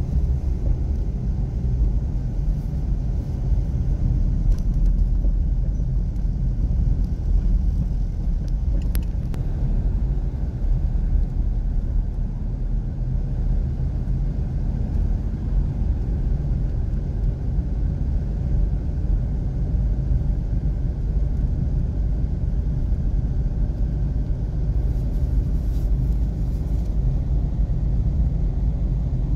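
Steady low rumble of a car driving slowly along city streets, heard from inside the cabin: engine and road noise with no sudden events.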